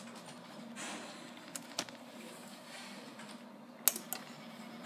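A hand handling a 3D printer controller board, with a tap about two seconds in and two sharp clicks about four seconds in, over a low steady hum.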